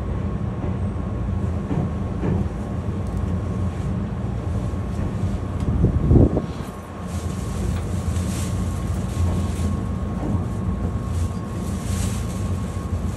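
Inside a Meitetsu local train car running on the line: a steady low rumble from the car and rails, with a faint steady tone above it. A single short knock comes about six seconds in.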